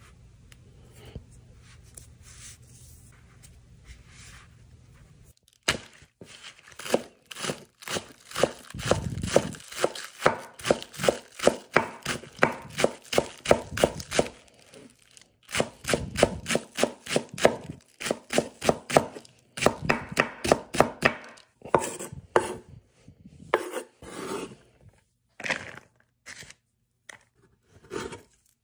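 Knife chopping food on a cutting board. It starts about five seconds in after a faint hum, runs as rapid, even strokes, and breaks up into scattered single cuts near the end.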